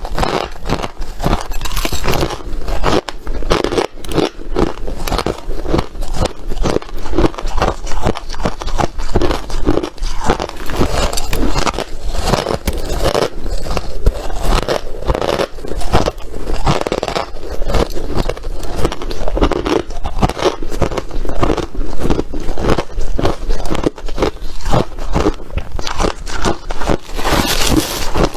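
A person biting and chewing crunchy ice, a loud, continuous run of irregular crunches and cracks.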